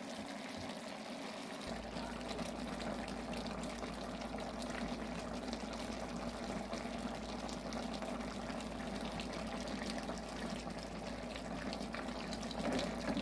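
Chicken simmering with onions and tomatoes in a Red Label wine sauce: a steady bubbling, sizzling hiss. A low steady hum joins about two seconds in, and a spoon stirs through the pot near the end.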